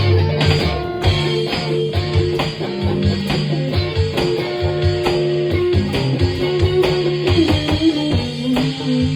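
A live band playing an improvised instrumental jam, led by guitar over a steady beat of sharp regular hits, with sustained notes on top.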